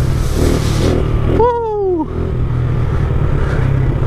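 Pit bike's small single-cylinder engine running steadily under held throttle through a long wheelie, with wind rushing over the helmet-camera microphone. A brief falling tone about a second and a half in.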